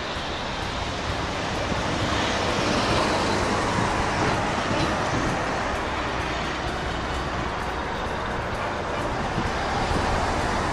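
Road traffic on a busy street: a steady rush of passing vehicles that swells about two seconds in and again near the end.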